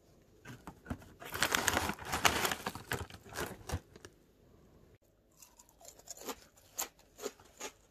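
Plastic snack packet torn open and crinkled in a dense burst for a couple of seconds. Near the end comes a string of separate sharp crackles and crunches as the crispy rice-stick snacks are eaten.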